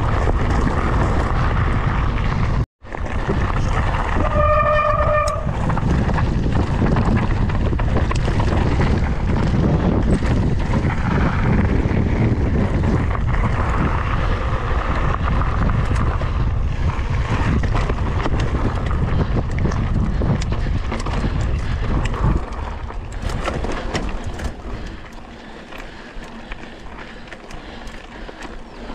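Wind buffeting the action camera's microphone and the mountain bike rattling over rough dirt singletrack at speed, a dense low rushing noise. A short steady beep-like tone sounds about four seconds in, and the rushing grows quieter after about 22 seconds as the pace drops.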